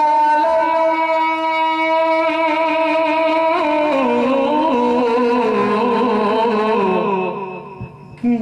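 A man's voice singing one long drawn-out line of a naat into a microphone: a note held steady for a few seconds, then wavering and sliding lower before fading near the end.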